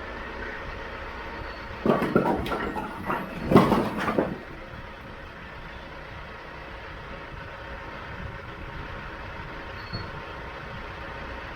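Tractor engine running steadily, with a loud burst of clattering knocks about two seconds in that lasts about two seconds.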